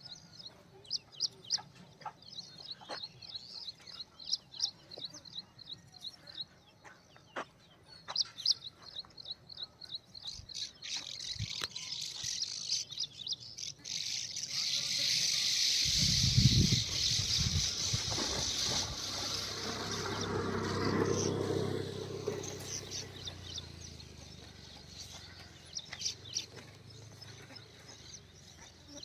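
Small birds chirping in quick repeated series of high notes. About halfway a broad rushing noise with a low rumble swells, drowns the chirps, then fades; the chirping returns near the end.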